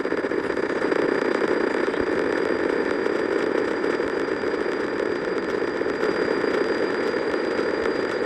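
A steady, harsh, heavily distorted buzz with no clear tune or beat: audio degraded by being re-exported over and over.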